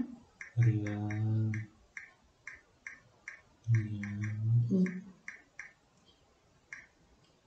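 Smartphone on-screen keyboard clicking as a message is typed, one short click per key tap in an uneven run. A person hums a steady low note twice, about a second in and again around four seconds, louder than the clicks.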